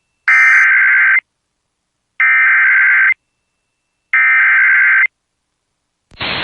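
Emergency Alert System SAME header: three identical bursts of rapid, warbling digital data tones, each about a second long and a second apart, the coded header that opens a warning broadcast. A hiss of broadcast audio starts near the end.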